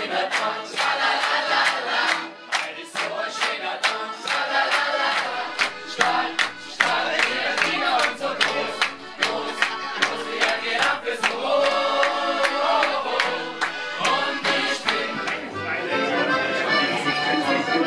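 A roomful of people singing together and clapping in time to lively folk music.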